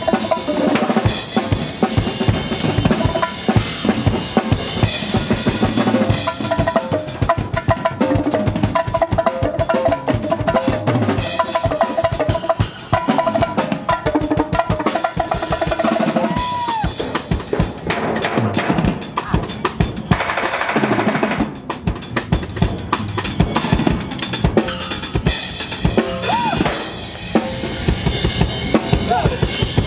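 Live percussion ensemble playing: a Yamaha drum kit with bass drum, snare and cymbals, joined by two more players on racks of drums, in a dense, continuous rhythm.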